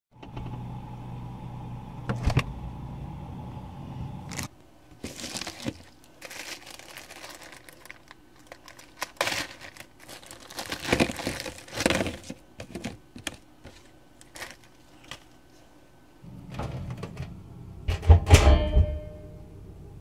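Crinkling and clattering of Doritos tortilla chips being handled onto a paper plate, then a loud clunk near the end and a steady microwave oven hum.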